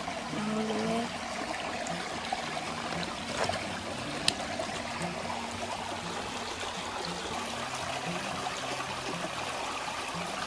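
Small river's water running steadily over its bed, with a single sharp click about four seconds in.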